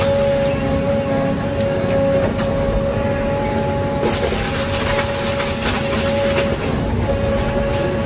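Forestry harvester running under load, with a steady high whine that dips briefly a few times as the felling head grips and tilts a conifer. A short burst of crackling branches comes about four seconds in.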